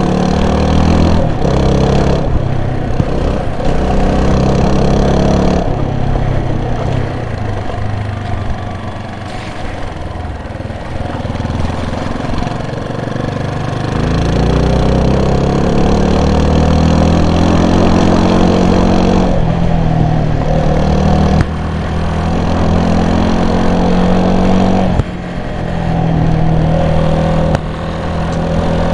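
A vehicle engine running continuously under way, with a steady low noise underneath. Its pitch climbs gradually as it accelerates and drops abruptly several times in the second half, as at gear changes or throttle lifts.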